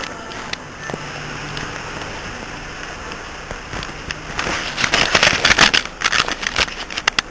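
Crackling and rustling handling noise from a recorder's microphone, with a dense run of sharp clicks that is loudest about five to six seconds in, over steady background hiss and hum.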